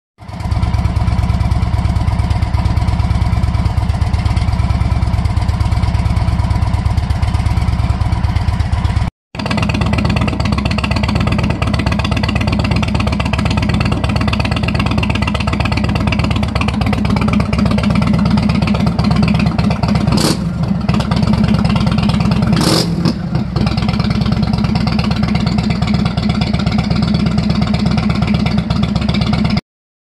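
A 2023 Indian Chief Bobber Dark Horse's Thunderstroke 116 V-twin runs with an even, loping beat, first through the factory exhaust. After a short break about nine seconds in, it runs through Radiant Cycles shorty GP pipes, with two short bursts of noise around twenty seconds in.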